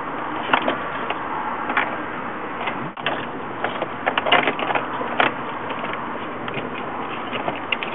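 Scattered light clicks and knocks of wiring and plastic parts being handled inside a car dashboard, busiest about four to five seconds in, over a steady background hiss.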